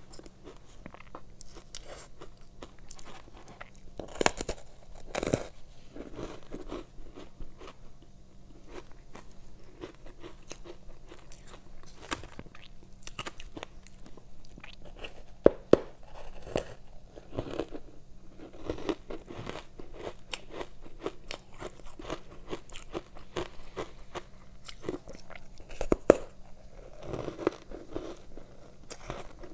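Ice coated in matcha powder being bitten and chewed: a steady run of soft, powdery crunches with a few much louder, sharp crunches about 4 to 5 seconds in, twice around 15 to 16 seconds in, and once around 26 seconds in.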